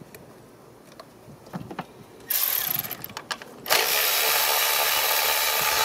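Mechanic's tool running in two spells on the engine during spark plug and ignition coil removal: a short burst about two seconds in, then a steady, even rasping noise for about two seconds that tails off at the end. Before the first burst there are only a few faint clicks.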